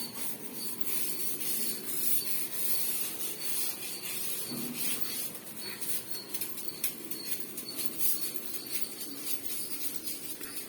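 A scrub brush scrubbing a wall, a run of quick, rough, rasping strokes.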